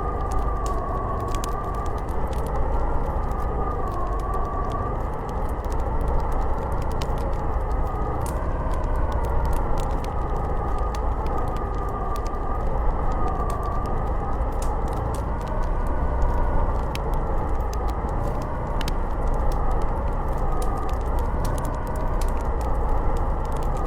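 Howling snowstorm wind: a wavering whistle that slowly rises and falls over a low rumble. A wood fire crackles through it with many small, sharp pops.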